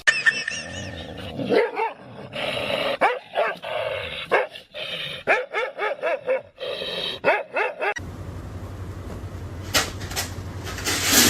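A dog barking and yipping in quick runs of short barks, with some whining. In the last few seconds there is a steady low hum and a loud rush of noise.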